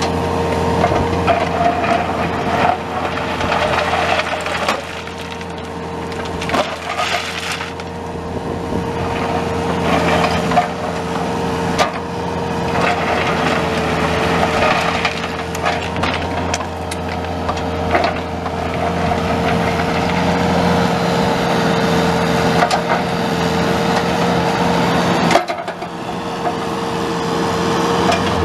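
Bobcat 331D compact excavator's Kubota V2203 four-cylinder diesel running under load with a steady high whine, over continuous crunching, cracking and scraping noises from the machine at work.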